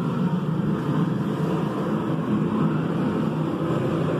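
Gas burner of a powder-coat curing oven burning with a steady, even noise.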